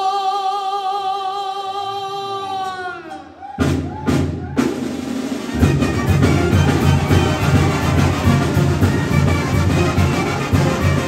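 Background music: a long held note that fades out about three seconds in, then a full beat with heavy bass drum and drums comes in and carries on.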